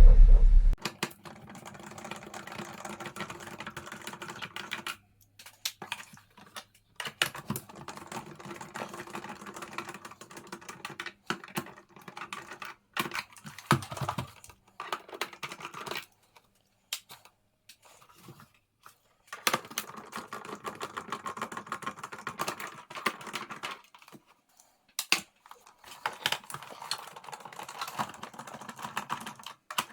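Close, irregular clicking and light clattering of small hard plastic and metal parts being handled on the GoldStar TC-F31 boombox, in bursts broken by short silences.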